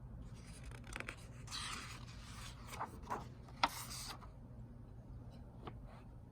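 Paper pages of a picture book being turned: rustling and sliding for about four seconds, with a few light clicks and one sharp tick a little past the middle.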